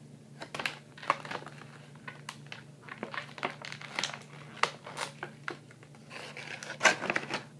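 Clear plastic bag crinkling in irregular crackles as hands work an action figure and its toy belt out of it.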